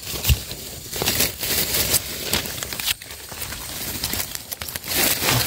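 Dry leaf litter and twigs rustling and crackling in forest undergrowth, with scattered small snaps and clicks as brush is pushed aside and handled, a little louder near the end.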